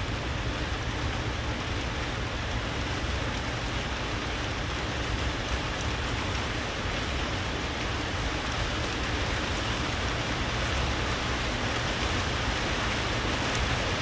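Rain falling steadily, an even hiss that grows slightly louder toward the end.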